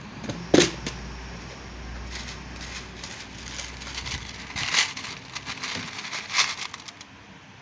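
Fingers picking through loose steel fishing hooks in a plastic compartment box: scattered small clicks and rustles, the sharpest about half a second in, near the middle and past two-thirds of the way through. A low hum runs under the first half and stops about halfway.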